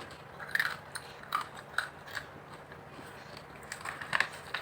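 A person biting and chewing a small Bento drumstick snack: a series of short, irregular crunches, the loudest near the end.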